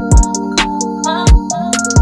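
Electronic background music: sustained synth notes over a deep kick drum that hits every half second or so.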